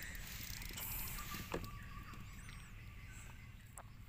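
Faint sounds of a hooked fish being played close to the boat: light splashing and scattered small clicks from the reel and line. A short bird chirp comes about halfway through.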